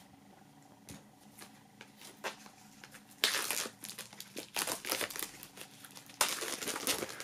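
Plastic shrink-wrap film being peeled off a CD case, crinkling in bursts from about three seconds in, with another burst near the end.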